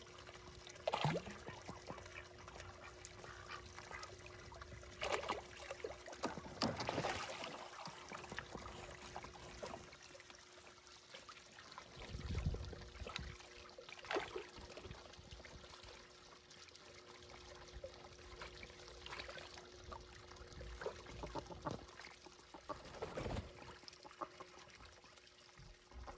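Water trickling and splashing in an unfrozen patch of pond fed by a fountain pump, with ducks splashing as they paddle and dabble, a few short duck calls now and then, and a steady hum underneath.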